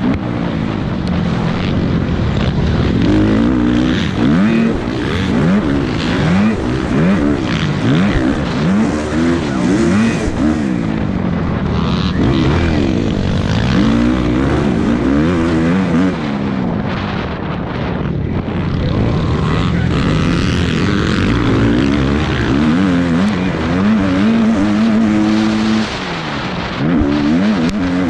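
Motocross dirt bikes racing, their engines revving up and dropping again and again as they shift and back off. Several bikes are heard at once, their pitches crossing, and one holds a steady rev near the end.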